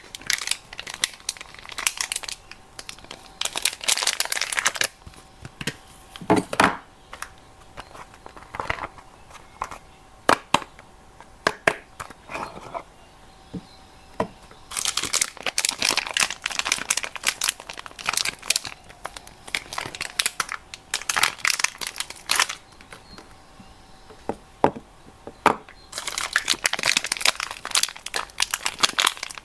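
Soap wrappers crinkling and tearing as bars are unwrapped by hand. There are three spells of dense rustling, at the start, in the middle and near the end, with scattered sharp clicks between them.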